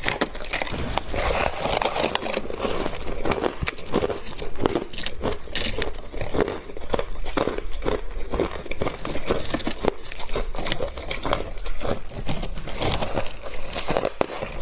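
A block of frozen shaved ice being bitten into and broken apart by hand: a dense, continuous run of crisp crunching and crackling.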